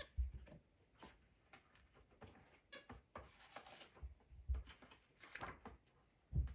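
Pages of a hardcover picture book being turned and patted by a capuchin monkey's hands: faint, irregular paper rustles and page flaps with soft thumps on the book.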